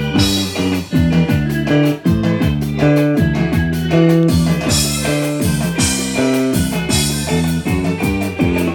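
A live band playing at a sound check: quick plucked guitar notes over drums with cymbals.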